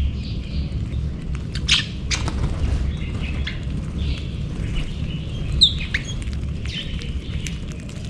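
A flock of small seed-eating birds chirping and calling while feeding, with a few sharper calls about two seconds in and near six seconds. Light ticks of beaks pecking grain on concrete sound over a steady low rumble.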